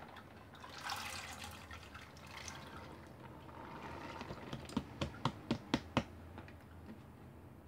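Soaked soybeans poured from a plastic colander into a pot of water, splashing and pattering in. Near the end, a quick run of about six sharp taps.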